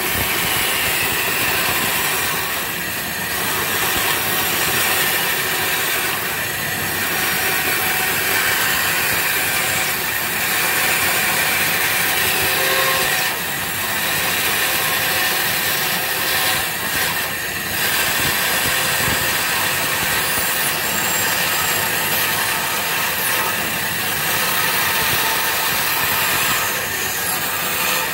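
Bandsaw running and cutting a curve through a stack of thin wooden sheets. The sound is steady, with a few brief dips as the feed eases.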